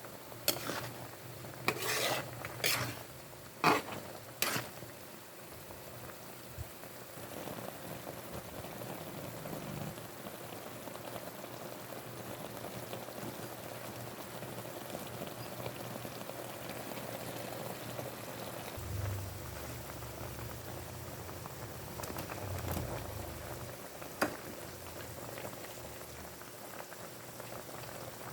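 Chicken frying in a pan with a steady sizzle. A cooking utensil scrapes and knocks against the pan several times in the first few seconds, and again a few times a little past the middle.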